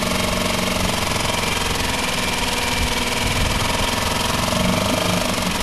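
Tohatsu MFS3.5A 3.5 HP single-cylinder four-stroke outboard idling steadily, warming up just after a cold start.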